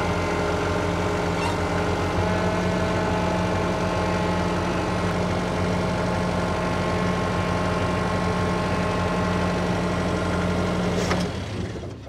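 Band sawmill's engine running steadily at working speed, then dropping off sharply near the end.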